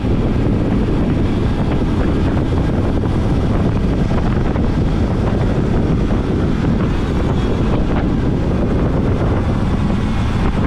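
Loud, steady rush of wind over a bicycle-mounted camera's microphone while the bike rides at about 65 km/h.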